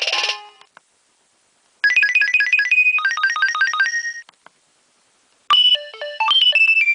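Nokia 2300 mobile phone ringtones, electronic tones played one after another. A tune ends just after the start. About two seconds in, a short ringtone of rapid repeated notes plays for about two seconds and ends on a held note. After a pause, a new melody begins about five and a half seconds in.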